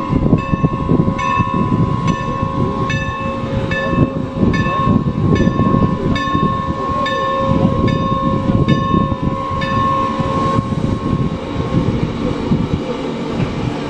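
Steam locomotive's bell ringing steadily, about two strokes a second, over the low rumble of the engine as it moves slowly up to couple onto the coaches. The bell stops about ten and a half seconds in.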